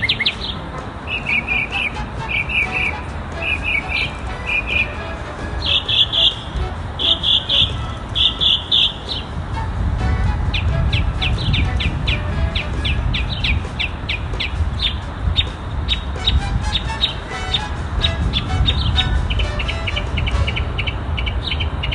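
Mockingbird singing a string of different phrases, each repeated several times before it switches. First come short chirps, then clusters of higher notes, then a long run of sharp single notes, and near the end a fast, buzzy trill. A steady low rumble sits underneath.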